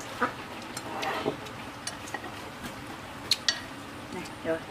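Occasional light clinks and taps of eating utensils against dishes, with a few sharp clicks, the clearest a quarter second in and two close together about three and a half seconds in, and a short pitched sound near the end.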